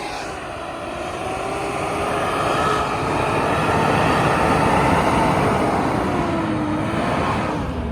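Off-road vehicle driving in snow, its engine note wavering in pitch over a dense rush of noise. It grows louder to a peak about halfway through, then eases off slightly near the end.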